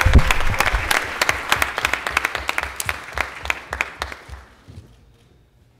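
Audience applauding, with a low thump right at the start; the clapping dies away about five seconds in.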